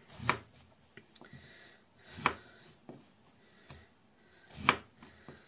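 A knife slicing a raw peeled potato into slabs on a plastic cutting board: three cuts about two seconds apart, each building to a sharp knock as the blade meets the board, with a few faint clicks between.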